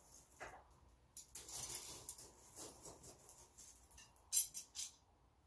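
Faint clinks and rattles of steel blacksmith's tongs against coal in a coal forge fire as the scarfed link is shifted while it heats to yellow heat, with a sharp metallic click about four and a half seconds in, followed by a couple of smaller ones.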